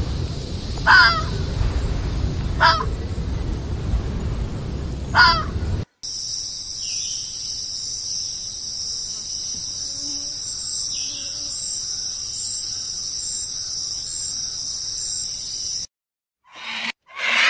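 Three short animal calls over a low rumbling background. After a sudden cut about six seconds in comes a steady, high-pitched insect chorus, which runs for about ten seconds and stops abruptly.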